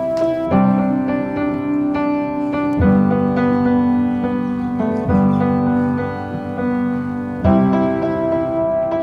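Background music: sustained keyboard chords changing every two seconds or so, no singing.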